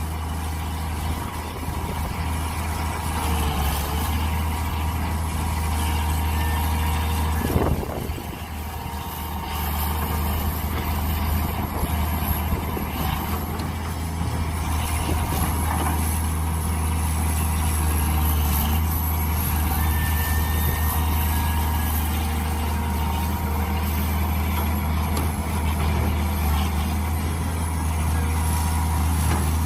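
Mini excavator's diesel engine running steadily with a deep low hum, and one short knock about eight seconds in.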